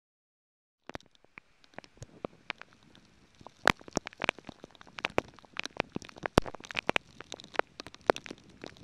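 Raindrops striking the camera and its microphone: irregular sharp pops and taps over a faint hiss of rain, starting about a second in after dead silence and growing denser and louder a few seconds later.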